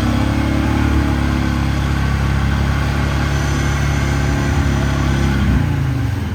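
Off-road vehicle engine revving hard and holding a steady note, then easing off about five and a half seconds in.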